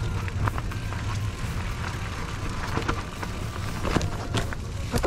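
Off-road motorcycle running slowly over rough, rocky trail ground: a steady low engine rumble with scattered knocks and rattles.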